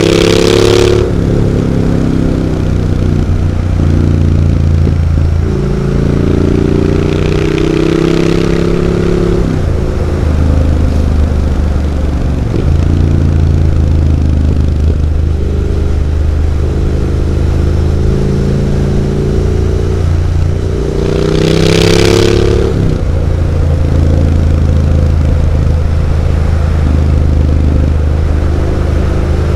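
Triumph Street Scrambler 900 parallel-twin engine through Zard aftermarket exhaust pipes, heard while riding. The engine note rises and falls with throttle and gear changes, with swells of revving at the start, about eight seconds in and about twenty-two seconds in.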